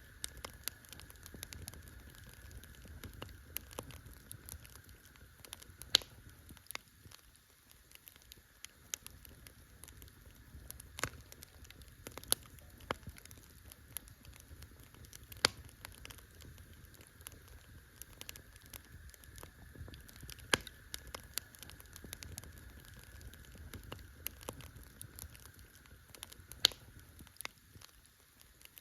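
Campfire crackling: a steady patter of small sharp snaps from burning wood, with half a dozen louder pops spread through, over a faint steady hiss.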